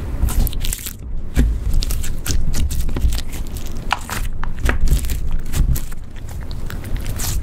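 Clear slime being squeezed and kneaded by hand, giving a quick run of sticky clicks and pops.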